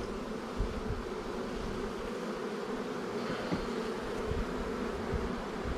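A colony of honeybees buzzing steadily over an open hive with the frames exposed, with a couple of faint light knocks.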